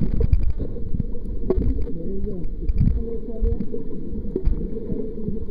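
Muffled underwater sound picked up by a submerged camera: low, churning water noise with wavering, garbled tones, broken by several short bursts of rapid clicking.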